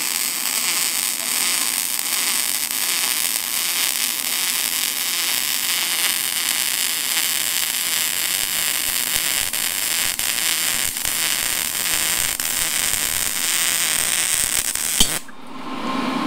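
Wire-feed welder's arc running steadily, a continuous crackling hiss as a bead is laid around a steel pipe where it meets a steel plate; it cuts off suddenly about a second before the end.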